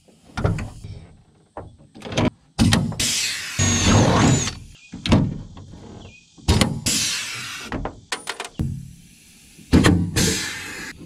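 Cordless drill spinning up and drilling through aluminum framing, and a rivet gun setting rivets into the aluminum bulkhead, in several short bursts with quiet gaps between.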